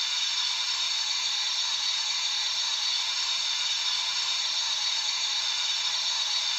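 Sound decoder of a Trix H0 model BR 42 steam locomotive playing a steady steam hiss through the model's small loudspeaker.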